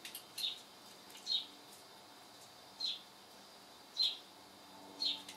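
A small bird chirping: short, high, slightly falling single chirps about once a second at uneven intervals.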